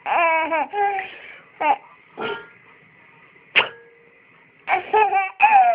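A toddler babbling and squealing in short, high vocal bursts, with a few brief sharp bursts in between.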